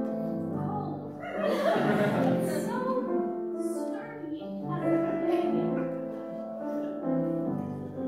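Music with a singing voice: a slow melody of long held notes.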